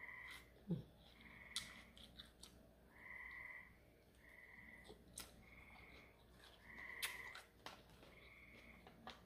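Frogs calling faintly: a steady series of short croaking calls, about one a second. A few sharp clicks and taps from chopsticks against a plastic salad container come through on top, the loudest about a second in and again about seven seconds in.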